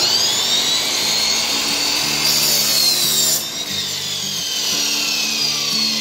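Miter saw motor spinning up to a steady high whine, then cutting through a 1x4 board for about a second, a little over two seconds in. The blade is then let up and winds down with a slowly falling whine.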